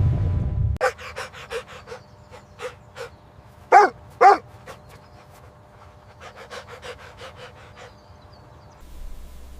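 A dog panting in quick, short breaths, with two loud barks close together about four seconds in.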